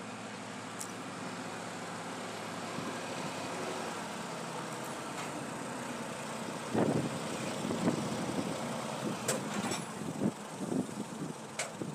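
Farm tractor's diesel engine running steadily as it tows an earth scoop past. From about seven seconds in, irregular gusts of wind buffet the microphone over the engine.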